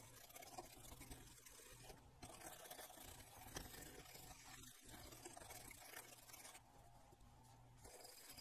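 Faint brushing and scrubbing of a circuit board with a small stiff-bristled brush, irregular strokes, as corrosion is cleaned off an amplifier driver board.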